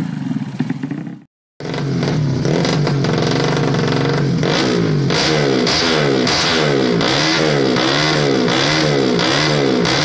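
Tuned four-stroke underbone road-race motorcycle engine (Yamaha Jupiter Z, bored to 130 cc) revving. The sound cuts off sharply about a second in. After a brief silence an engine runs steadily, and from about halfway it is blipped up and down in an even rhythm, about three revs every two seconds.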